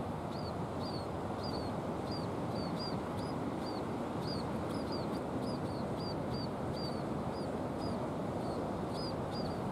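Scaly-breasted munia giving short, high chirps, each dropping slightly in pitch, repeated about two to three times a second, over a steady rushing background noise.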